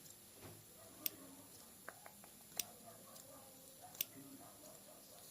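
Water drips falling in a slow, even rhythm: sharp little clicks about every second and a half, with a couple of faint pitched plinks in between.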